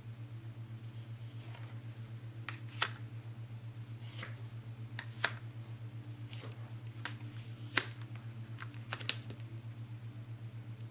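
About a dozen sharp, irregularly spaced clicks and taps, like keys or small objects being handled, over a steady low hum.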